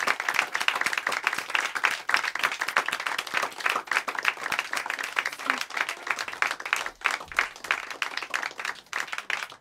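Audience applauding: a dense, continuous patter of many hands clapping.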